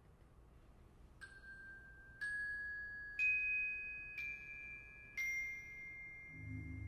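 Five single high, bell-like notes struck on metal-bar mallet percussion, about one a second and each left ringing, in a slow rising-then-falling line that opens the piece; the third note is the loudest. Near the end, low sustained notes come in underneath.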